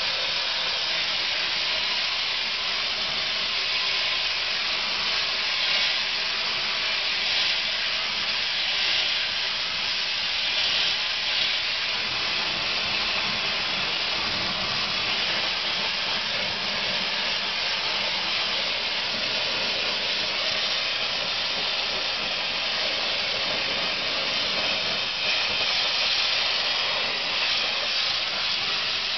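Corn cob media blaster hissing steadily, without a break, as compressed air blows ground corn cob grit against the log walls.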